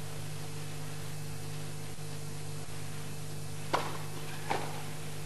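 Two tennis ball strikes near the end, about three quarters of a second apart: a serve, then the return off the other racket. Under them, steady hiss and hum from an old broadcast recording.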